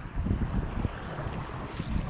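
Wind buffeting the microphone in uneven gusts, over small waves washing on the shore.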